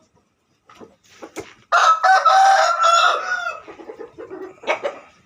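A game rooster crows once, a long crow starting about two seconds in. A few sharp clicks come before and after it.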